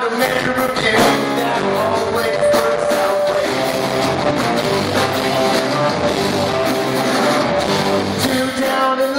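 Live rock band playing loudly, with electric guitars, keyboard, bass and drums, recorded from the crowd at a concert.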